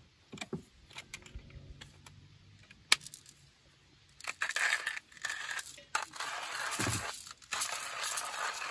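Clicks and knocks of a manual coffee grinder and its glass container being handled and set down on a wooden shelf, with one sharper knock about three seconds in. From about four seconds in comes a continuous rattling hiss.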